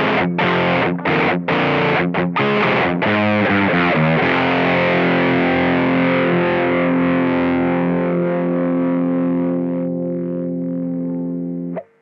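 Electric guitar through a NUX Plexi Crunch overdrive pedal with its gain turned fully down, giving a light crunch: a riff of short, choppy chords, then one chord left ringing for about eight seconds until it is cut off sharply near the end.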